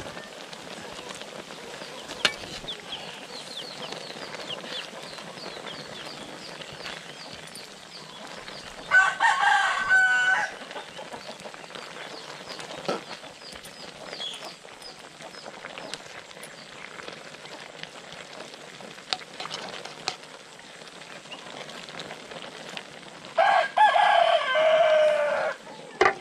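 A rooster crowing twice: a call of about a second and a half about nine seconds in, and a longer one falling in pitch near the end, over a faint steady hiss.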